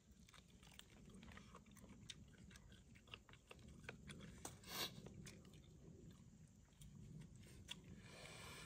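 Faint, scattered crackles and rustles, with a louder rustle about halfway through and another near the end.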